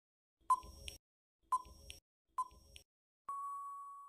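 Quiz countdown-timer sound effect: three short ticking beeps about a second apart, then about three seconds in a longer steady beep that fades out, marking time up.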